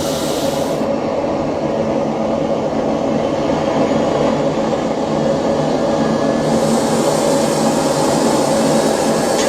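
Homemade propane-fuelled jet engine running under its own power: a loud, steady rushing noise with a low hum underneath. The high hiss drops away about a second in and returns after about six and a half seconds.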